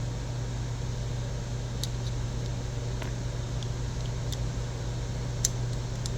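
A few faint, sparse clicks of small metal parts of an out-the-front knife being lifted off and set down during disassembly, the sharpest about five and a half seconds in, over a steady low background hum.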